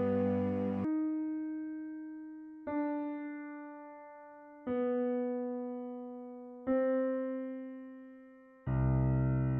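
Slow, sparse film-score music: four single notes struck about two seconds apart, each ringing and slowly fading, with a fuller chord coming in near the end.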